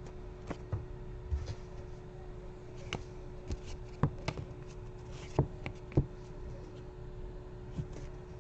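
Trading cards and packaging being handled on a table: scattered light taps, clicks and rustles, a dozen or so at irregular intervals, over a steady faint hum.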